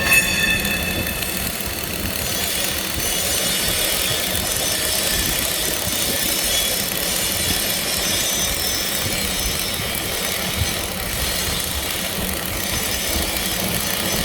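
Flux-cored arc welding: the arc crackling and sizzling steadily, with a short pitched tone at the very start.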